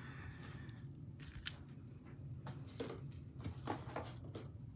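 Faint handling sounds of a stack of trading cards being picked up and cleared off the table: a few light clicks and rustles over a low steady hum.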